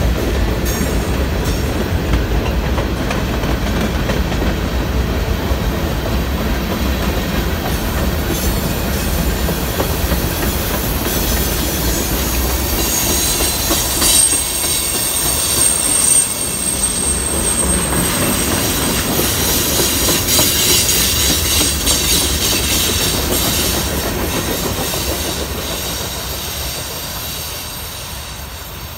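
Freight cars of a passing manifest train, covered hoppers and tank cars, rolling by close at hand: a steady rumble of steel wheels on rail with clacking over the joints. A high, thin wheel squeal rings from about 12 to 18 seconds in, and the sound fades near the end as the last cars move away.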